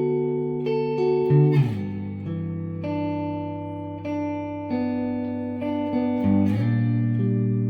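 Effonia Stellar electric guitar with neodymium pickups, played in a mix of picked notes and chords that ring on. The notes change every half second to a second, with a strummed chord about one and a half seconds in.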